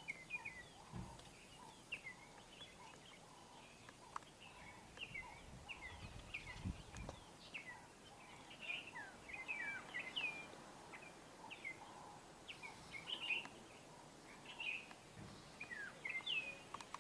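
Several small birds chirping, many short quick chirps overlapping throughout, faint. A brief low rumble comes about six to seven seconds in.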